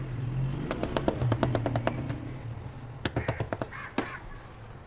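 A quick run of sharp taps and crackles on sand-cement blocks as they are tapped and crumbled, with a second short cluster of taps about three seconds in. A bird calls in the background.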